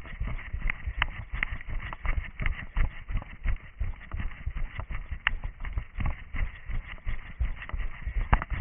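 A runner's footsteps on forest ground, a thud about three times a second, with sharp snaps and crackles of twigs and undergrowth. The sound is picked up by a camera worn on the runner's head, so the footfalls sound close and jolting.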